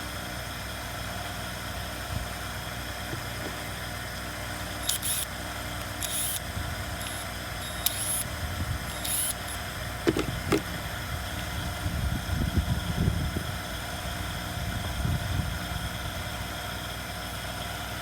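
Chainsaw parts and tools being handled on a bench: a few short scrapes, a couple of clicks about ten seconds in, and some rustling, over a steady background hum.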